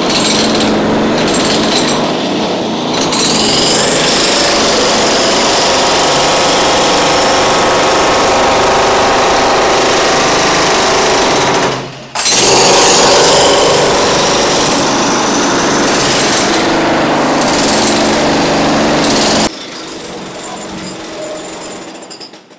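Jackhammer running continuously at a demolition site. It stops briefly about halfway through, then drops to a quieter level near the end.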